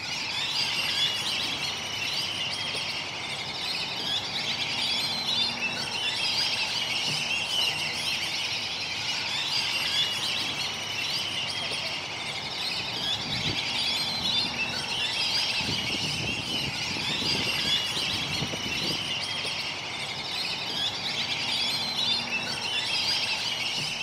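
A dense, steady chorus of many birds calling at once: a continuous high chatter of overlapping chirps and squeals.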